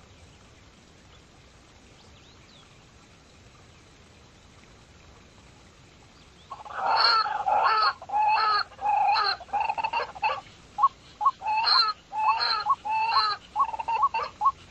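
Pheasant calling: a run of loud, rough calls about one every 0.7 s starts about halfway in, then breaks into quicker, shorter notes near the end.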